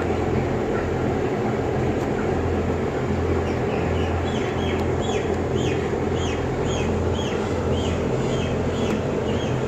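Steady drone of the barn's blower fans with a low electrical hum from the control panel. From about four seconds in, a bird chirps over it in a run of short falling chirps, about two a second.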